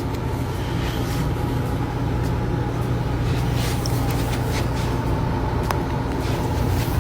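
A steady low engine-like rumble, as from a running motor vehicle, with a few faint clicks.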